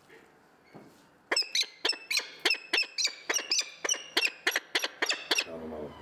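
A falcon gives a rapid, harsh series of sharp, high calls, about four a second for some four seconds, starting about a second in.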